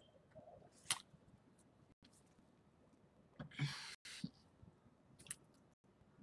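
Faint room tone with a few small clicks and a short breathy rustle about three and a half seconds in, from a person at a headset microphone between sentences.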